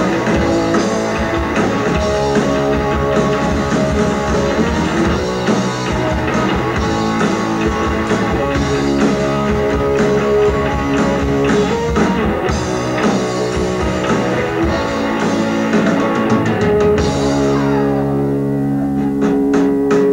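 Live rock band playing without vocals: electric guitars, bass and drum kit. About three-quarters of the way through the drums stop and held guitar chords ring on as the song winds down.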